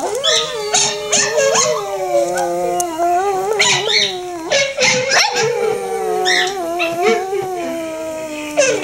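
Boston Terrier howling in two long, wavering howls, the first breaking off about halfway through and the second starting right after.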